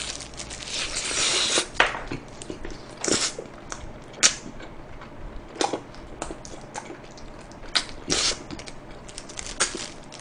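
Biting and chewing BHC Hot Soy BBQ fried chicken: a dense stretch of crunching and crackling at first, then separate short crunches and wet smacks every second or two.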